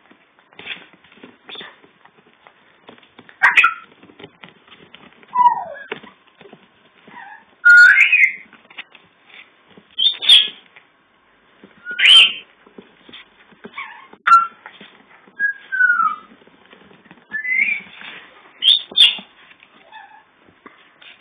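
Yorkshire terrier puppies squeaking and whimpering: short high-pitched cries every second or two, some sliding down in pitch, with faint rustling between them.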